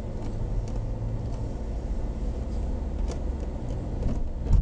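Car driving on wet streets, heard from inside the cabin: a steady low rumble of engine and road noise, with a brief heavy thump near the end.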